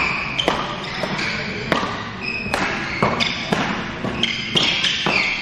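Badminton doubles rally: rackets strike the shuttlecock in sharp pops, coming faster in the second half, with short squeaks of court shoes between the shots.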